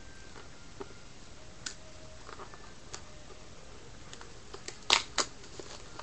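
Handling of a trading-card box and its packs: scattered light clicks and taps, with two sharp clacks about five seconds in.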